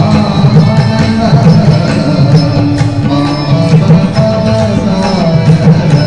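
Recorded Indian classical dance music with drums and a melody line, played over the stage loudspeakers for the dancers.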